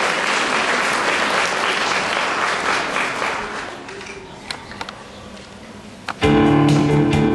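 Audience applause that fades out about four seconds in. About six seconds in, instrumental music starts suddenly.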